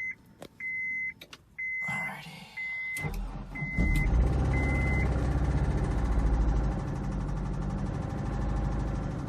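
A dashboard warning chime beeps six times, about once a second; about three seconds in, the Honda S2000's four-cylinder engine cranks and catches on a cold start after a week unrun, then runs at a high idle that eases down a little after about seven seconds.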